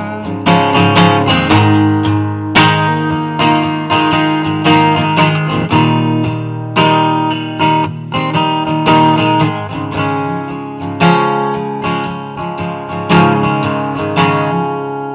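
Acoustic guitar playing an instrumental break in a song, with strummed chords and ringing notes and no singing.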